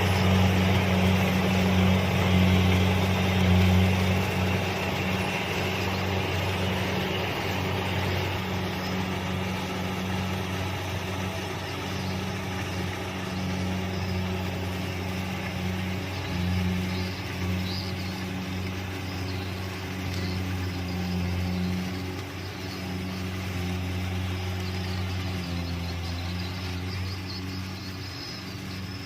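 Kubota DC-70 combine harvester running steadily at work, a continuous diesel engine hum with machinery noise over it, slowly getting a little quieter toward the end.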